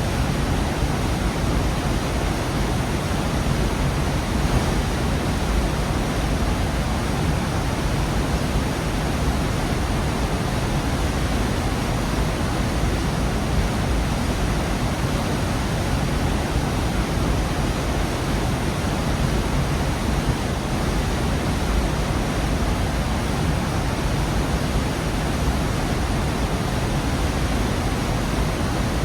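Waterfall in a rocky gorge: water falling and rushing in a steady, even roar, heaviest in the low end.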